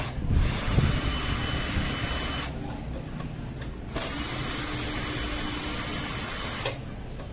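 A small power tool run in two bursts of about two and three seconds, each starting and stopping abruptly, with a rushing noise and a faint steady whine in the second burst.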